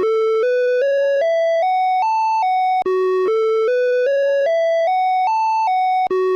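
Åland Islands EAS alarm tone: an electronic melody of short notes climbing in steps to a peak and dropping back, repeating about every three seconds with a brief break between repeats.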